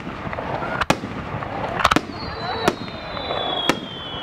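Aerial firework shells bursting with sharp bangs about once a second, and a whistling firework giving a long, slowly falling whistle from about halfway through, over a crowd murmuring.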